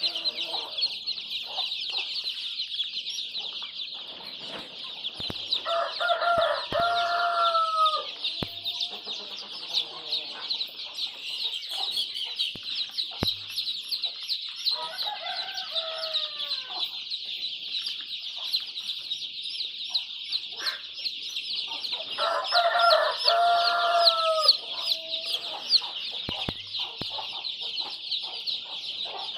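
Desi chickens on a poultry farm: roosters crow three times, about a quarter of the way in, near the middle and about three-quarters through, each crow lasting about two seconds and dropping in pitch at the end, over constant high-pitched chatter from the flock.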